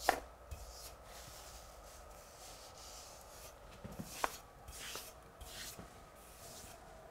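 Wallpaper brush rubbing over a pasted paper backscene in a few quiet strokes, with a sharp crackle as the paper is lifted back from the wall at the start and a sharp click about four seconds in.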